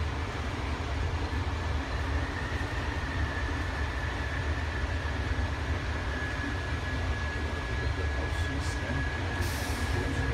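A Bombardier ART Mark II AirTrain car running along its guideway, heard from inside the front of the car. A steady low rumble of steel wheels on rail carries a thin, steady high whine above it, with a few short hisses near the end.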